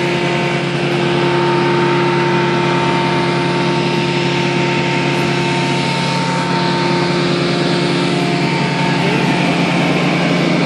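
Steady hum of a car engine with road noise, heard from inside the moving car.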